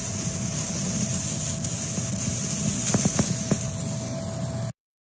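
High-voltage plasma arc burning between two carbon rods: a steady hiss and buzz with a constant whine and a few sharp crackles, cutting off suddenly near the end.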